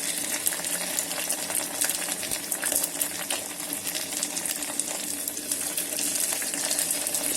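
Onion-tomato masala frying in hot oil in an electric kettle: a steady sizzle with dense fine crackles throughout.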